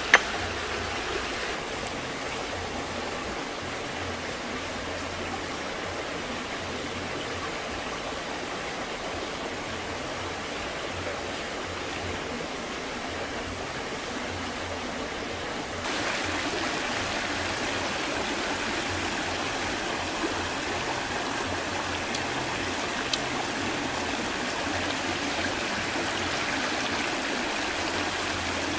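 A fast stream rushing over rocks, a steady rush of water that steps up in level about halfway through. A single sharp click right at the start.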